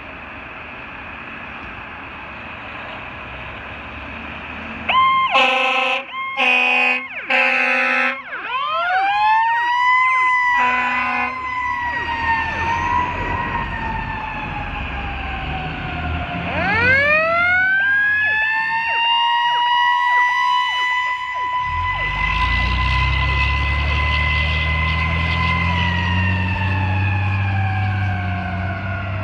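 Pierce fire apparatus leaving the station on an emergency call: three short air horn blasts, then a mechanical siren winding up and slowly falling. A second wind-up about halfway through holds a steady wail before winding down, with a diesel engine pulling away under it in the second half.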